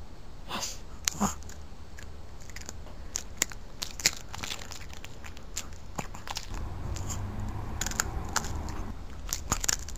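Chihuahua biting and crunching a small cookie taken from the fingers: scattered sharp crunches and teeth clicks, the loudest about a second in and again about four seconds in.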